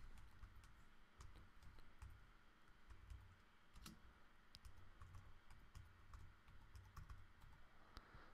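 Faint computer-keyboard typing: quick, uneven keystroke clicks as a command is typed.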